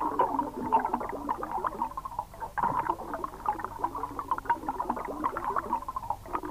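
Underwater sound of bubbles and dense, irregular clicking and popping.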